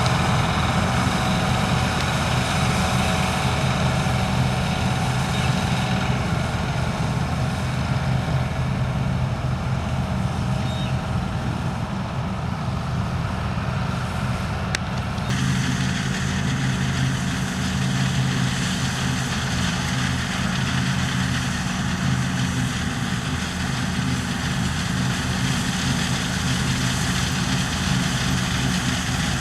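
Combine harvester's diesel engine and threshing machinery running steadily, with an abrupt change in tone about fifteen seconds in.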